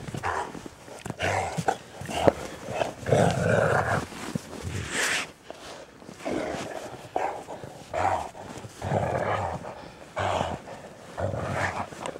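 Great Danes play-wrestling in snow: a run of short, rough, breathy huffs and growls, about one a second.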